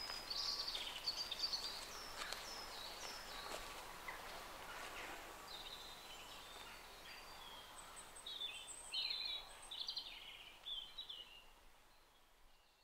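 Small birds singing and calling outdoors: many short chirps and quick descending notes, fading out near the end.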